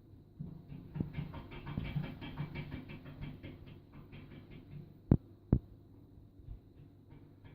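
Cats pawing and knocking at a door to be let in: a run of fast light taps and scratches, then two sharp loud knocks about half a second apart around five seconds in, then a few fainter taps.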